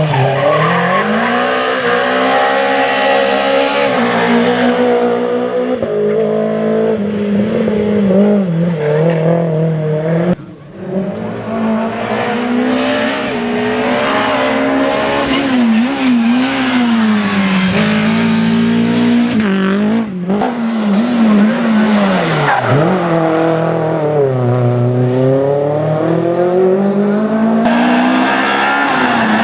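Renault Clio Williams rally car's 2.0-litre four-cylinder engine at full throttle, revs climbing and dropping again and again through gear changes. The sound breaks off abruptly twice, about ten and twenty seconds in, as one pass cuts to the next.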